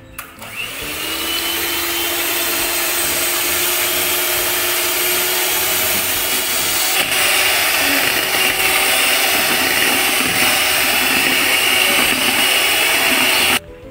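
Electric hand mixer beating egg whites in a plastic bowl: the motor whine spins up just after the start, runs steadily, grows a little louder and brighter about halfway through, and cuts off suddenly near the end.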